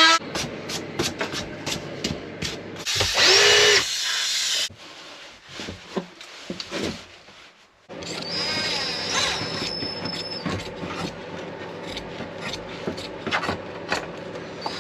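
A power drill running in short bursts, one with a rising whine, amid scattered clicks and knocks of work on wooden ply panels.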